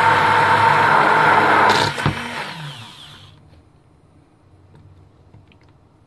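Handheld immersion blender running in a pot of broccoli cream soup, its motor whirring steadily as it purées. About two seconds in it stops with a knock and the motor spins down, falling in pitch and fading over the next second.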